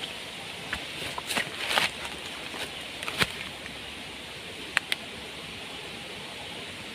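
Footsteps and brushing through undergrowth and leaf litter, with a few short sharp clicks scattered through them, the loudest about three seconds in, over a steady faint hiss.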